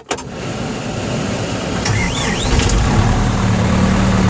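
New Holland C190 skid steer's diesel engine starting after a click, heard from inside the cab: the noise builds over about a second and settles into a steady run.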